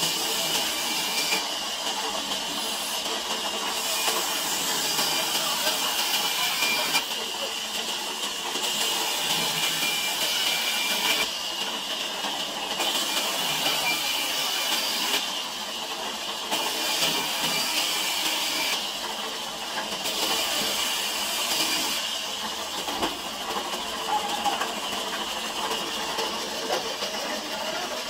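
A large sawmill band saw running and cutting through timber: a steady hissing rasp with a high whine from the blade. The cutting noise swells and eases every few seconds as the plank is fed through.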